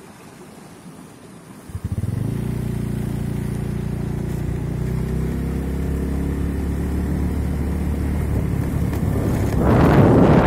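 A motorcycle engine starts suddenly about two seconds in and runs steadily, its pitch edging slowly up. Near the end a loud rush of wind on the microphone covers it.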